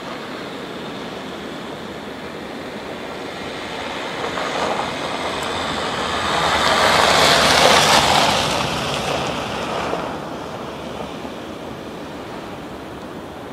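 VW T5 van on studded winter tyres driving past on a snow-covered road: tyre and engine noise swells to a peak about seven to eight seconds in, then fades as the van drives away.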